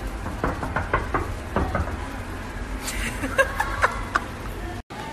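A few light knocks and clicks over a low rumble. The sound drops out briefly near the end.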